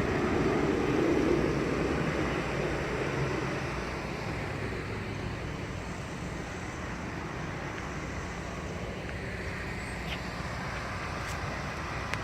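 Steady outdoor background noise, a low hum and hiss with no distinct events, a little louder in the first few seconds before settling.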